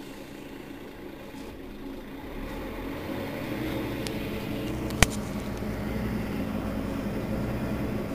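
Mercedes-Benz Citaro Facelift city bus engine idling with a steady low hum that grows louder from about two and a half seconds in. A single sharp click comes about five seconds in.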